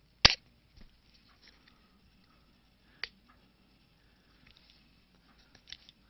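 Two sharp clicks about three seconds apart, the first the loudest, with a few faint ticks and rustles between them: small hard parts being handled.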